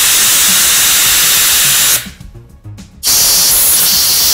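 Compressed air blown through small golf-cart carburetor parts to clear the jets and passages: two loud blasts of hiss, broken by a pause about two seconds in.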